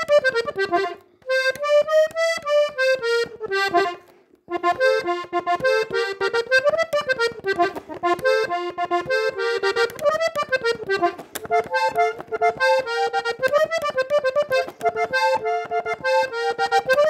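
Diatonic button accordion tuned in F playing a melody of quick single notes. It breaks off briefly twice in the first few seconds, then plays on without a break.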